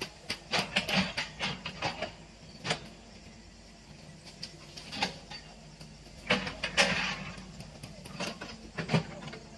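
Hitachi EX-120 excavator's diesel engine running steadily, with irregular sharp cracks and knocks as the machine works in the brush, the loudest a little past the middle.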